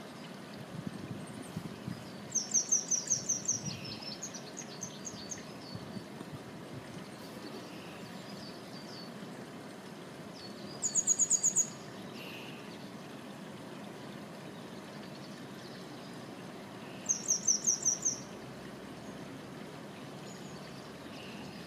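A small songbird calls three times: short, quick series of very high, sharp notes, each lasting about a second, a couple of seconds in, about eleven seconds in, and around seventeen seconds in. A steady low rushing hiss runs underneath.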